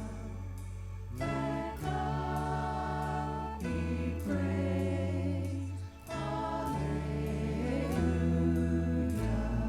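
Christian worship song: voices singing over instrumental accompaniment, with sustained low notes and chords changing every second or two.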